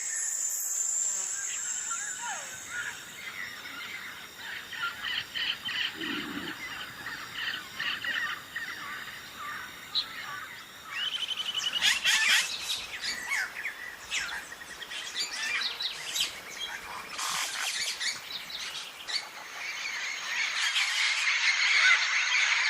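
Small birds chirping and twittering in quick, repeated calls, busiest from about halfway through and again near the end.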